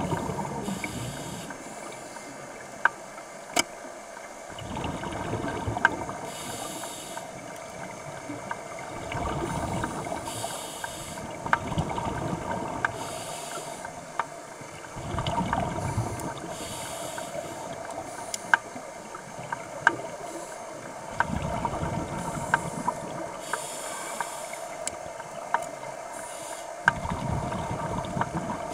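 Scuba diver breathing through a regulator underwater. A hissing inhale alternates every few seconds with a rumbling, bubbling exhale, and scattered sharp clicks sound throughout.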